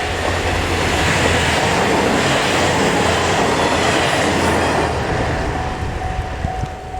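Four-car KiHa 110 series diesel multiple unit passing at speed: engine noise and the clatter of wheels on rail swell to a peak and then fade. A level-crossing warning bell rings steadily, covered by the train at its loudest and heard again as it fades.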